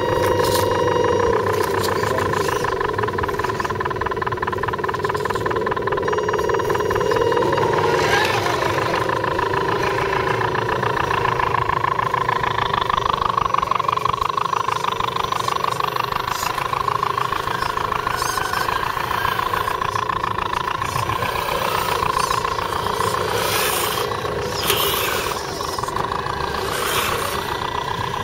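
Electric motors and gear drivetrains of radio-controlled scale crawler trucks whining continuously, the pitch rising and falling as the throttle changes, with a few short clicks in the second half.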